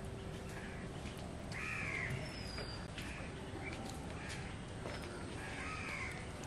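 A crow cawing several times, loudest about one and a half seconds in and again near the end, with a small bird's short high chirps between the caws.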